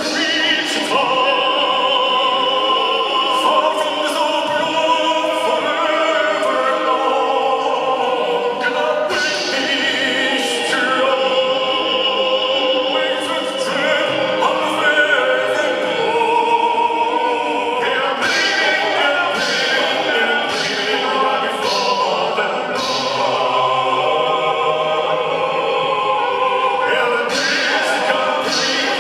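Music with sustained, choir-like singing.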